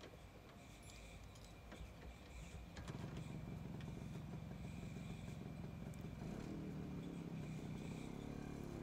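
Motorcycle engine running, faint at first and growing louder about three seconds in, its pitch shifting near the end.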